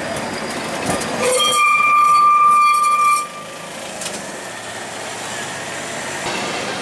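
Historic tram's steel wheels squealing against the rails, a steady high-pitched squeal that lasts about two seconds and cuts off sharply, over the running rumble of the tram.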